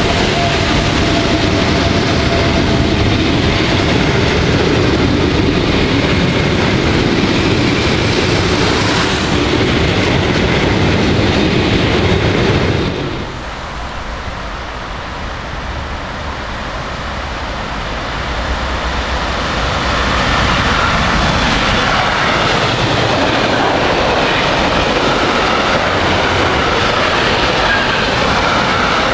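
Train running past on the rails, a loud steady rush of wheels and cars. The noise drops suddenly a little under halfway, then builds up again over a few seconds as another train approaches and passes.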